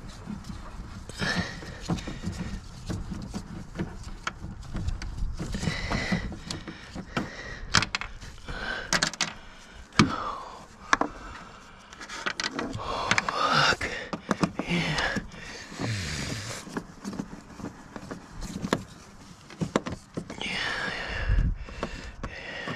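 Plastic cowl panel of a Ford Windstar being handled and worked loose with hand tools: plastic scraping and rubbing, with scattered clicks and knocks, the sharpest about ten seconds in.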